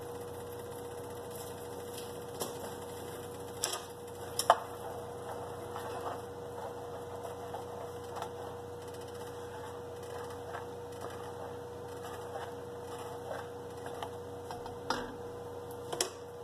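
A black plastic spoon stirring butter sauce in a stainless steel pot, with scattered clicks and knocks of the spoon against the pot, the loudest about four and a half seconds in. A steady electrical hum runs underneath.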